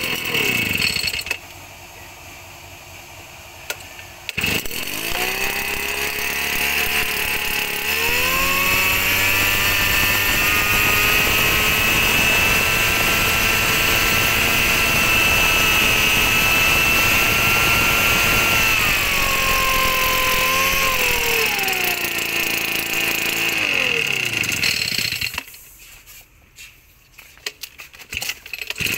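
Echo (Kioritz) backpack mist blower's 41 cc two-stroke engine: a short burst that dies away, then the engine starts about four seconds in. It is revved up around eight seconds and held at high speed with the fan, then throttles back and cuts off a few seconds before the end.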